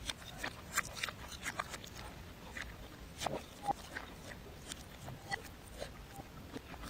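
Close-miked mukbang eating sounds played in reverse: irregular wet clicks and smacks of chewing and mouth noises, with a couple of short squeaky blips midway.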